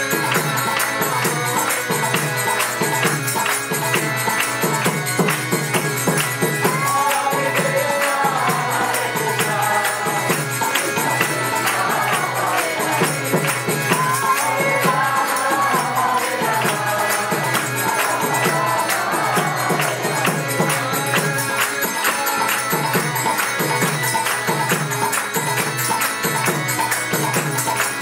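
Devotional bhajan: a man's voice leading a chant over a steady, even drum beat and jingling hand percussion.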